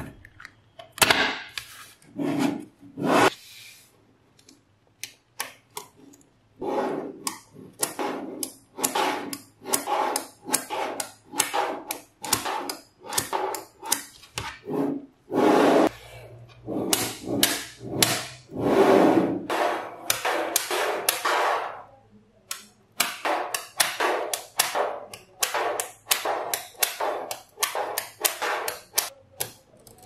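Small magnet balls clicking and clacking as they are handled: they snap onto one another and are pressed and slid into flat slabs by hand. The clicks come in quick, irregular runs, some blurring into short rattles, with a couple of brief lulls.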